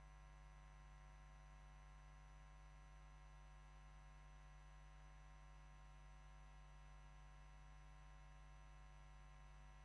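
Near silence: a faint steady hum with no other sound.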